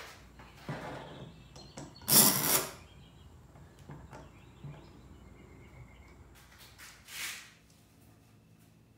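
Metal clamps being handled and adjusted on a glue-up: a few short scraping rattles, the loudest about two seconds in, with light clicks between them and one more scrape near the end.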